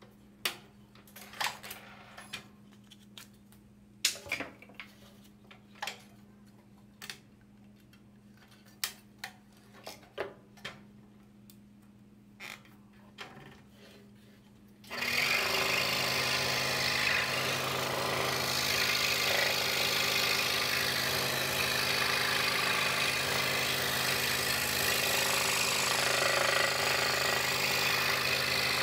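DeWalt scroll saw stopped while the blade is threaded through the next hole, with scattered clicks and taps from the workpiece and blade clamp being handled. About fifteen seconds in the saw starts suddenly and runs steadily, its reciprocating blade cutting the wooden puzzle.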